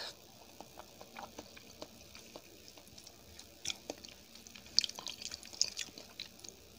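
A person chewing food close to the microphone: soft wet mouth clicks and smacks, scattered and denser in the second half.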